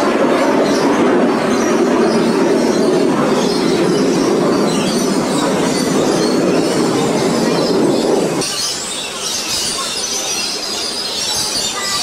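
Steady rumbling run of a monorail car in motion, which drops away sharply about eight and a half seconds in; after that, faint high bird chirps.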